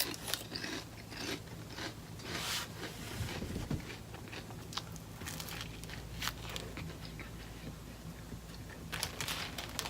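Close-up eating sounds: a person biting, chewing and crunching food, in scattered small clicks and crunches.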